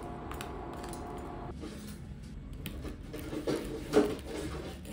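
Knife cutting through a crispy pan-toasted tortilla on a ceramic plate: small crackles and clicks, with one sharp clink about four seconds in.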